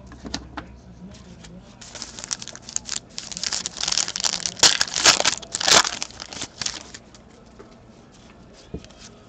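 Foil wrapper of a trading-card pack being torn open and crinkled by hand. It is a run of crackling from about two seconds in, loudest in the middle, dying down about seven seconds in.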